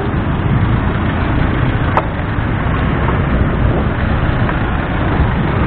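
Steady rumble of slow, congested city traffic of cars and motorcycles, picked up from a moving bicycle threading between them, with a single sharp click about two seconds in.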